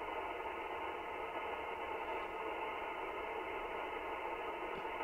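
Steady hiss of band noise from an Icom IC-7300 transceiver's receiver on 40 meters in LSB while its dial is being tuned, with faint steady tones running through the hiss.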